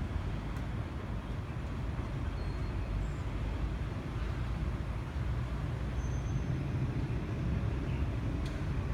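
Steady low rumble of distant road traffic, an even drone with no distinct events.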